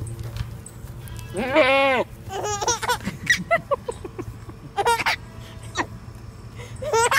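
A bleating farm animal: one long, wavering bleat about a second and a half in, followed by several shorter calls.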